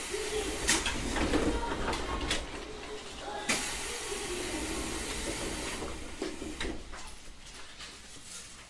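Electric commuter train's sliding doors closing: a few short knocks, then a hiss of compressed air from the door and brake gear lasting about two seconds.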